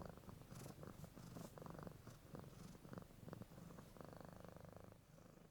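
Kitten purring faintly, a soft, finely pulsing low hum with a few small clicks, fading out near the end.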